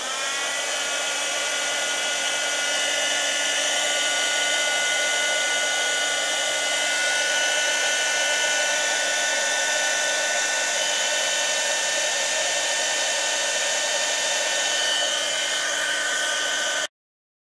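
Small handheld craft heat gun running. Its fan spins up with a briefly rising whine, then blows steadily with a high whine, and it stops abruptly near the end. It is heating wet acrylic pour paint to bring cells up to the surface.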